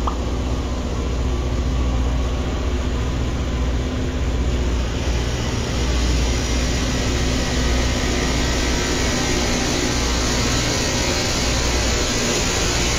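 Loram rail-grinder train passing close by: a heavy, steady low rumble of engines and wheels on the rail, joined about five seconds in by a harsh grinding rush, louder and higher, as the grinding stones working against the rail come past.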